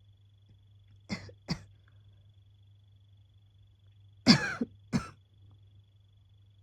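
Asthmatic coughing in two pairs: two short coughs about a second in, then two heavier coughs about three seconds later, the first of them the loudest and with a rasping, pitched tone.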